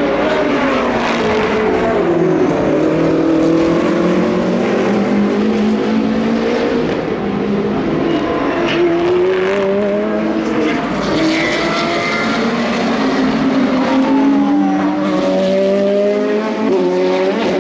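High-performance sports car engines running hard on a race circuit, several at once, their pitches rising and falling as they accelerate and lift off.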